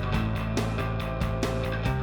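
Background rock-style music with a steady drum beat, bass and guitar.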